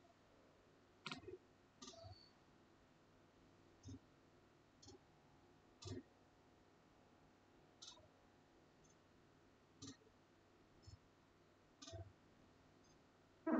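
Faint, short clicks over near silence, roughly one every second or two, with the loudest one near the end.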